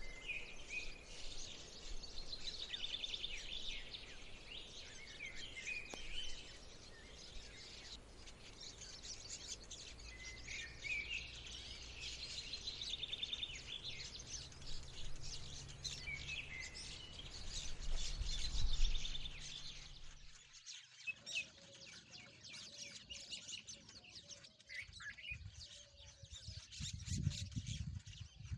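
Rosy-faced lovebirds chirping: repeated shrill, high chirps and chattering calls, over a low background rumble that drops out abruptly about two-thirds of the way through.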